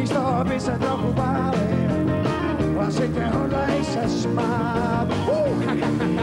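Live band music: a man singing with a wavering voice over piano, a drum kit and electric guitars.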